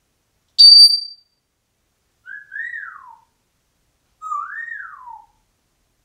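African grey parrot giving a very loud, short, high-pitched beep, a mimicked electronic beep from a home security system, then two quieter whistles, each sliding up and then down in pitch.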